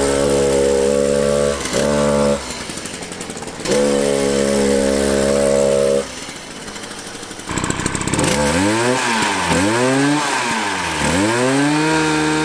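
Small 70cc two-stroke chainsaw engine in a toy ride-on car, running loud at high revs in spells with drops to a lower speed between them. In the second half it is revved up and down several times, then held steady near the end.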